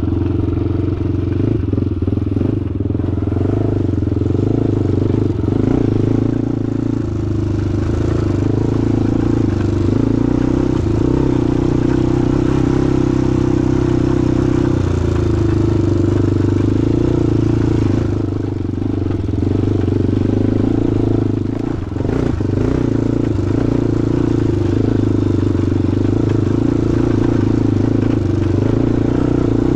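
Honda 400EX-based ATV's single-cylinder four-stroke engine running while being ridden, a fairly steady engine note with one brief dip in level about two-thirds of the way through.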